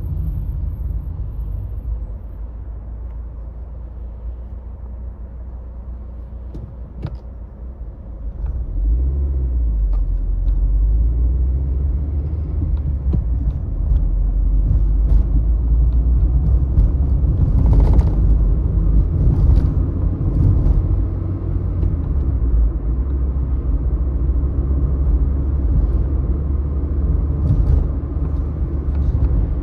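Car driving on city streets: a steady low rumble of engine and road noise. It is quieter for the first several seconds and grows louder from about eight seconds in, with a few short knocks along the way.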